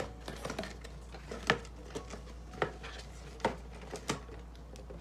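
A handful of light, sharp clicks and taps, about five spread over a few seconds, from a hard plastic Hello Kitty Bluetooth speaker being handled and turned over in the hands.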